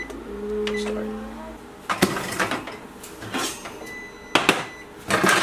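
A steady low tone for about the first second and a half. Then the oven door and wire rack rattle and clank as a glass loaf pan of baked bread is pulled out with oven mitts, with sharp metal clicks about four and a half seconds in.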